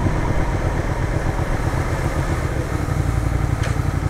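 Suzuki Gladius 400 motorcycle's V-twin engine running at low speed, its beat steadying about three seconds in.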